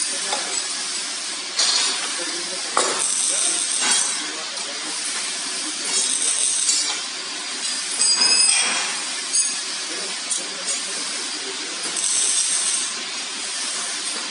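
Metal frame parts of a rendering machine clinking and knocking as they are handled and fitted by hand. A few sharp knocks stand out over steady workshop background noise, along with brief hissing noises.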